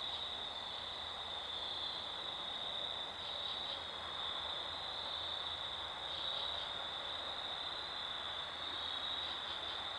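Steady chorus of night-singing insects, a continuous high-pitched trill that wavers slightly, over a constant background hiss.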